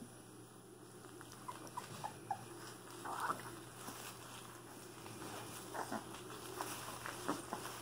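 Three-week-old Cane Corso puppies nursing: a few tiny squeaks about a second and a half in and a slightly longer one about three seconds in, over soft suckling and rustling of wood shavings.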